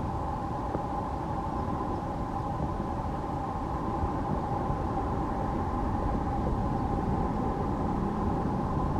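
Boeing 737-800's CFM56-7 jet engines running steadily: a constant whine over a low rumble.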